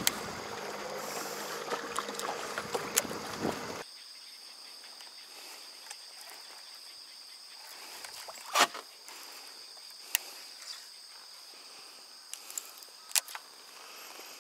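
Wind and water noise on a small fishing boat, with a low steady hum from the electric trolling motor. After about four seconds the sound drops abruptly to quieter lake ambience broken by a few sharp taps, one louder than the rest about halfway through.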